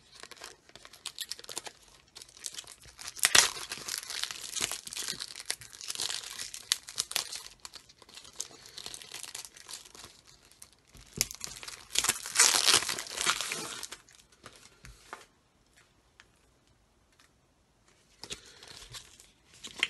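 Cellophane shrink-wrap being picked at, torn and crumpled off a card-deck box: crackling and crinkling in spells, loudest about twelve seconds in, then a few quiet seconds before a little more rustling near the end.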